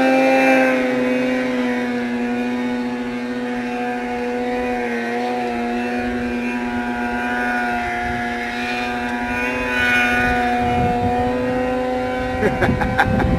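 Snowmobile engine held at high revs as the sled climbs a steep snow slope: one steady drone with little change in pitch. The engine note stops near the end, giving way to rough rumbling noise and clicks.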